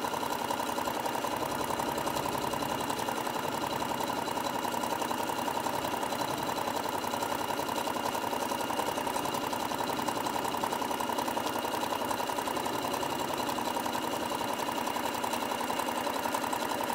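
Electric sewing machine running steadily at speed, sewing a long straight quilting stitch through layered cotton fabric and batting, with a fast, even stitching rhythm and no pauses.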